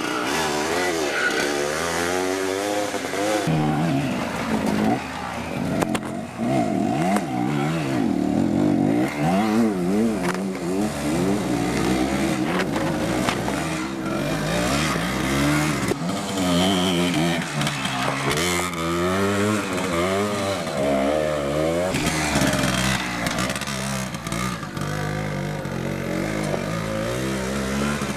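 Hercules K 125 BW military motorcycle's 125 cc two-stroke single-cylinder engine being revved up and down as it is ridden off-road, the engine note rising and falling over and over.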